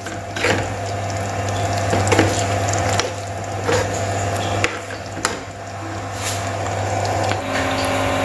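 Steel spoon stirring green peas through a simmering masala gravy in a frying pan, scraping and clinking against the pan every second or so, over a steady sizzle and low hum.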